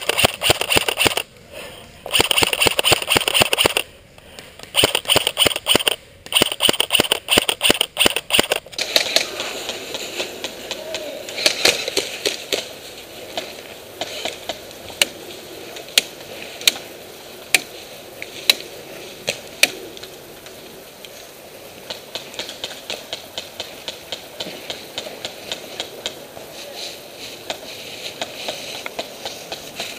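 Airsoft guns firing long full-auto bursts, a fast dense rattle broken by short pauses. About nine seconds in this cuts off abruptly and gives way to quieter scattered sharp clicks and snaps of single airsoft shots.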